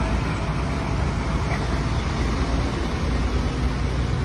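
Heavy lorries and a jeep driving past: a steady low engine rumble with road noise.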